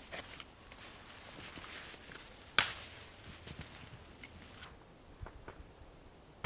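Scattered light rustles and crunches, with one sharp knock about two and a half seconds in, the loudest sound here.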